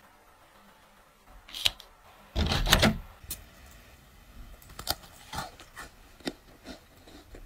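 Crisp butter cookies being handled and lifted from a wicker basket: a few sharp clicks and light crackles, with one louder crackling burst about half a second long, a little before the middle.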